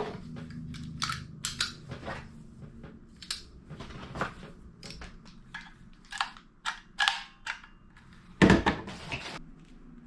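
Plastic grooming-kit attachments and their plastic wrapping being handled: an irregular run of clicks, taps and crinkles, with one louder knock about eight and a half seconds in.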